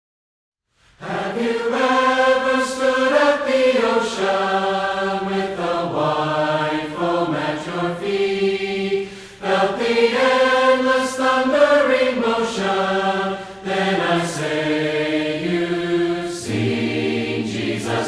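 A group of voices singing a hymn in harmony, starting about a second in after silence, in long held phrases.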